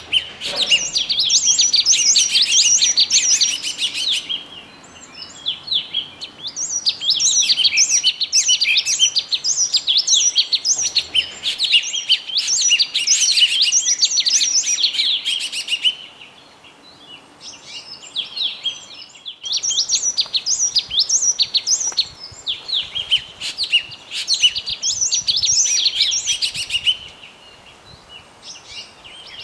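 Small birds chirping and tweeting in rapid, dense phrases, in three long bouts separated by short quieter pauses.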